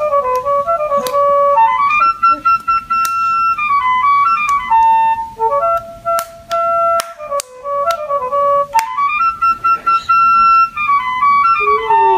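An electronic baby toy plays a simple melody in a flute voice, one clear note after another, with a few sharp clicks over it. Near the end a lower note slides downward.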